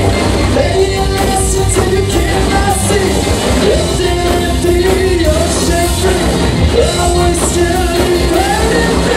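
Live rock band playing an instrumental passage: distorted electric guitars, bass and a drum kit with crashing cymbals. A lead line slides and bends up and down in pitch over the band.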